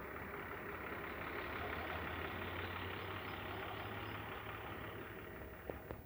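An engine running steadily at idle: a low, even hum with a hiss over it, cutting off near the end.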